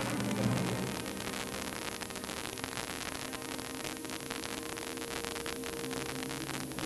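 Analog cable TV static from a channel with a very weak, snowy signal: a steady hiss with a hum and a faint steady tone underneath. It cuts off suddenly at the end as the channel changes.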